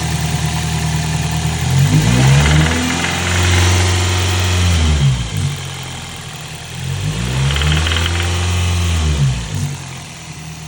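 2003 Toyota Celica GT's 1ZZ-FE 1.8-litre four-cylinder engine idling and revved twice, rising and falling back each time, with the knocking noise the owner is trying to track down.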